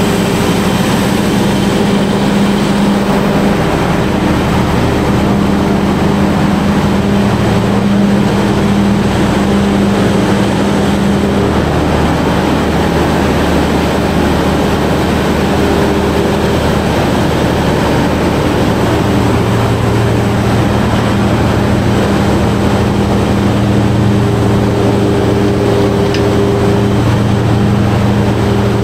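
Large 1500 kVA Perkins diesel generator set running steadily during its load test, a loud continuous drone whose low hum shifts slightly in tone partway through.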